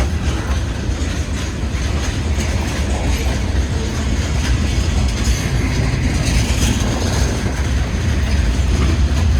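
A train passing close by: a steady, loud rumble of wheels on the rails with some clatter.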